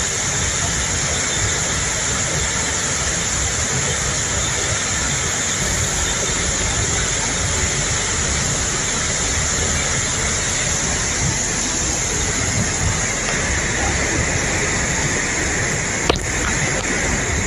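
Cold lahar (a volcanic mudflow of water, mud and rock) surging down a river gorge: a loud, steady rushing, with a single sharp knock near the end.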